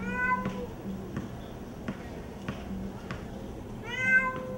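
Domestic cat meowing twice: a short meow at the start and a longer, louder one about four seconds in.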